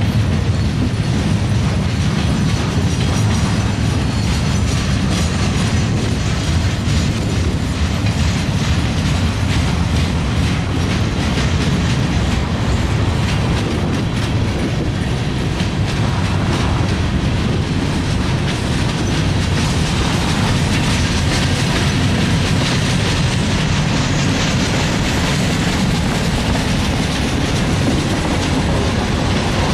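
Freight train's boxcars and covered hoppers rolling steadily past, steel wheels clacking over the rail joints, with wind buffeting the microphone.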